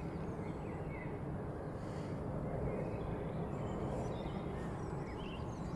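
Outdoor ambience: a steady low rumble with small birds chirping faintly now and then.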